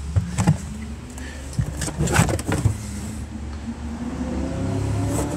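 A few short knocks and rubbing sounds as the car's boot floor and trim are handled to show the spare wheel, over a steady low rumble of handling noise on the phone's microphone.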